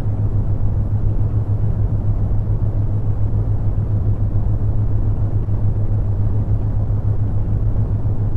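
Steady brown noise, a deep rumbling hiss that is strongest in the lows and has little treble. A steady low hum runs beneath it: the theta-wave tone layer.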